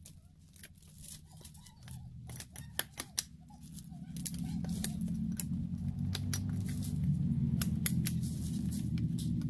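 Dry, splintered cedar wood and twigs cracking and snapping in sharp, irregular clicks as loose pieces are worked off a fallen log, with leaf litter crunching underfoot. About four seconds in a steady low rumble comes in and stays, louder than the snapping.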